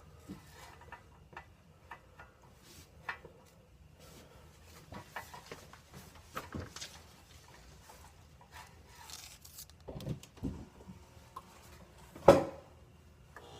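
Scattered small knocks and rustles of handling, then one sharp loud clack about twelve seconds in: the refrigerator's power plug being pushed into the wall outlet.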